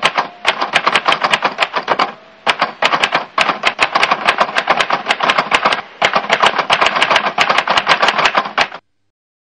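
Typewriter keystroke sound effect: rapid sharp clicks, about six a second, in three runs broken by short pauses about two and six seconds in. The clicks stop abruptly near the end.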